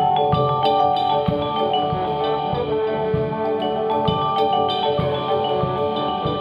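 Vibraphone played with four yarn mallets: a quick run of struck notes and chords whose bars ring on and overlap, with other percussion underneath.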